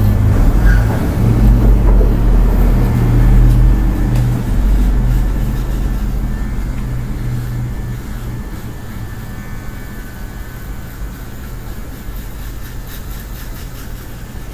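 Electric hair clippers buzzing as they are run over a freshly shaved scalp to take the last stubble down to the skin. The hum is loud for the first eight seconds or so, then quieter.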